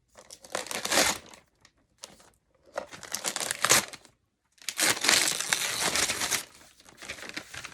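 Gift wrapping paper being torn open and crumpled, in three main bursts of crinkling with fainter rustles near the end.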